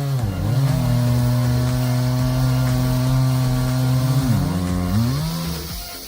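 A chainsaw engine running hard, as when cutting: it holds a steady pitch for about three seconds, then drops, climbs again and fades out near the end.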